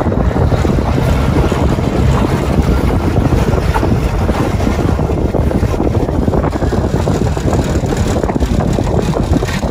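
Steady wind rumbling on the microphone in an open boat on choppy lake water.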